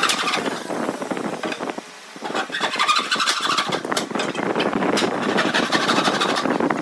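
A hand saw in a hacksaw-style frame rasping back and forth through a clamped wooden block, with a short pause about two seconds in.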